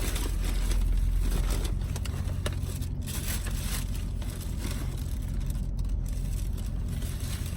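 Paper food bag rustling and crinkling in irregular bursts, over the steady low hum of a car with its engine running.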